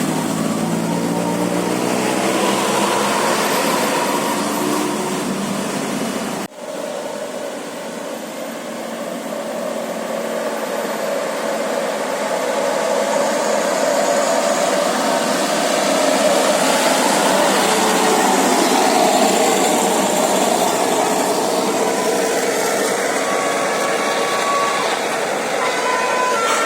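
Bus engines and road traffic running steadily, with a sudden cut about six and a half seconds in.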